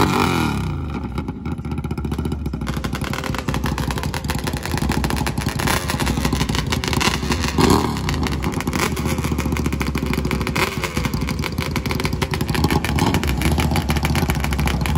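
ATV and dirt-bike engines running and revving, a fast steady engine pulsing with revs rising and falling now and then.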